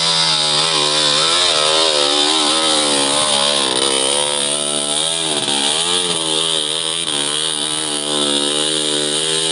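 Engine of a motor gerandong, a stripped-down motorcycle built for hauling wood, revving up and down over and over as it labours up a steep, slippery dirt slope. It gets a little quieter after about four seconds as the bike pulls away.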